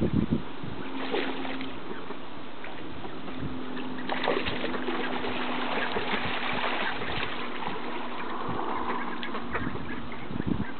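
Ducks splashing and bathing in a pond: water sloshing and spattering, heaviest from about four to eight seconds in.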